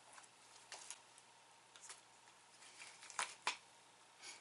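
Faint clicks and rustles of a plastic slime tub being opened and handled, with two sharper clicks a little after three seconds in.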